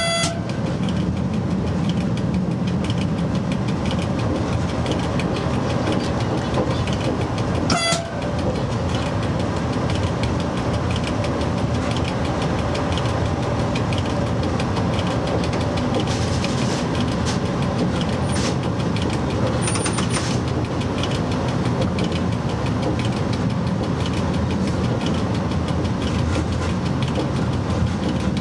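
Steady running noise of an FS E.656 electric locomotive hauling a train along the track, with one brief toot of its horn about eight seconds in.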